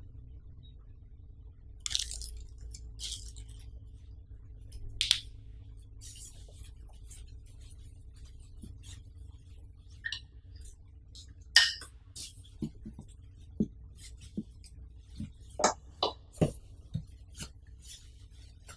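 Plastic packaging crinkling and rustling in short crackles as it is handled, with a run of soft knocks, about one or two a second, in the second half.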